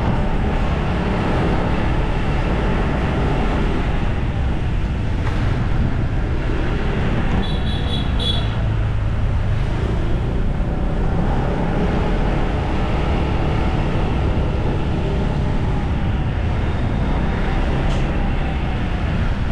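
Steady rumble of riding along narrow streets: road and engine noise mixed with wind buffeting the microphone. About eight seconds in, a short run of high chirps.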